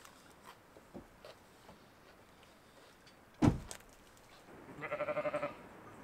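A single heavy thump about three and a half seconds in, then a short, rapidly wavering animal bleat about a second later.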